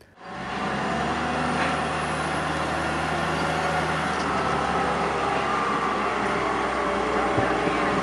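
Large Volvo wheel loader fitted with a log grapple, its diesel engine running steadily: a low engine hum under a constant rush of machine noise.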